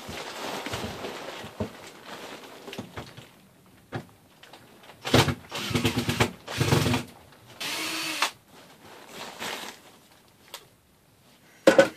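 Cordless drill backing screws out of a cedar table in several short runs, its motor whine starting and stopping and rising and falling in pitch. A sharp knock comes near the end.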